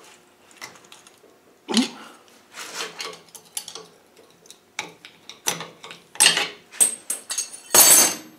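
Steel hand tools clinking and scraping against an R380 gearbox layshaft gear and bearing as the bearing is levered off. An irregular string of sharp metallic clicks and clacks, with a longer, louder clatter near the end.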